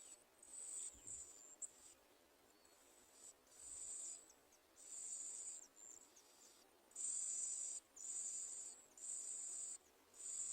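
Bar-winged prinia nestlings begging: a run of high, buzzy calls, each lasting half a second to a second, repeated about seven times with short pauses between.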